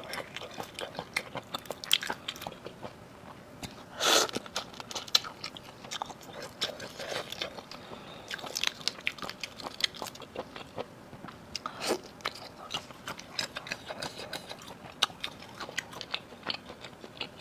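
Close-miked eating of seafood: steady wet chewing and biting clicks, with louder bites about four seconds in and again near twelve seconds.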